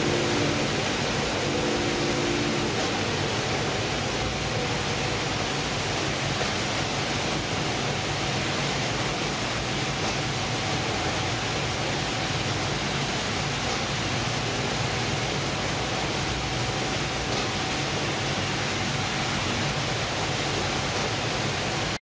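Steady din of a fishing boat's fish-processing deck: conveyors and processing machinery running, with water running from the wash hoses and a faint steady hum underneath.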